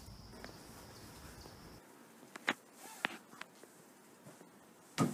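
Outdoor ambience with a steady high insect drone, which cuts off abruptly about two seconds in. A quiet room follows, with a few sharp clicks and a louder knock near the end.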